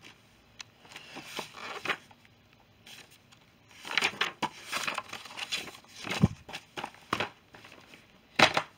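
Irregular rustling and crinkling handling noise with a few sharp knocks, busiest from about four seconds in and with a low thud about six seconds in.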